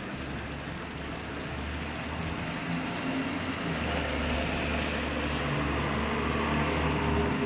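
Steady rain, with a car driving past on the wet road; its tyre hiss and engine grow louder from about four seconds in and peak near the end.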